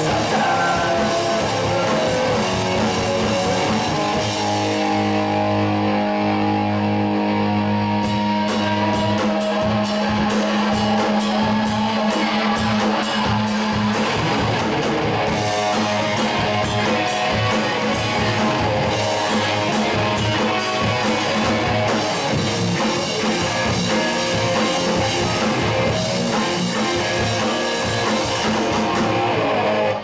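Live rock band playing with electric guitars, bass guitar and drum kit. A long held low note rings through the first half, and evenly repeated drum and cymbal hits run through the second half.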